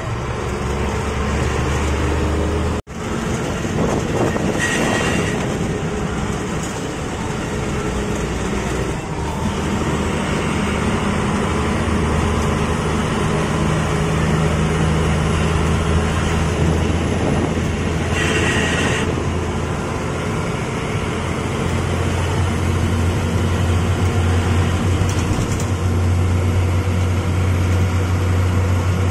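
A bus's diesel engine runs under way, heard from inside the driver's cab, with a steady low drone whose pitch shifts a few times as it speeds up and changes gear. Two brief higher-pitched sounds cut in about 5 seconds and 18 seconds in.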